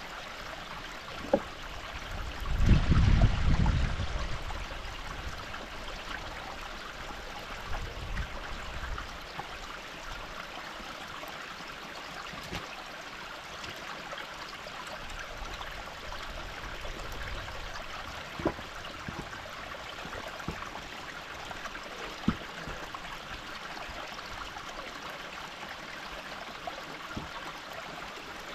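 Steady running water of a small stream, with a brief low rumble about three seconds in and a few scattered sharp knocks as the wooden waterwheel and its pipe axle are set onto the wooden support posts.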